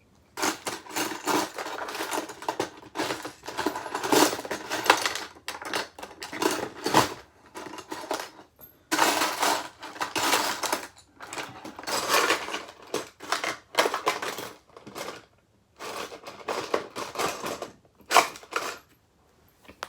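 Small metal bolts and screws clinking and rattling as they are rummaged through by hand, in irregular bursts with short pauses between.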